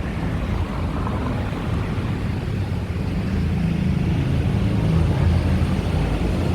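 Wind buffeting the microphone: a steady low rumble that grows a little louder in the second half.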